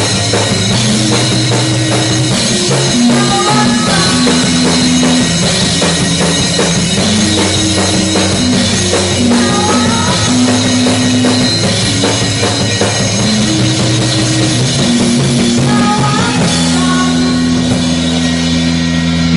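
Rock band playing live at rehearsal: a drum kit with bass drum, a bass line moving between held notes, and guitar, with a few sliding notes. The notes are held longer for the last few seconds.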